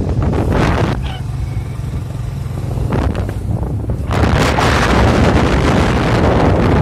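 Motorcycle engine running steadily under way, with wind buffeting the microphone. The wind noise drops back about a second in and comes back loudly about four seconds in.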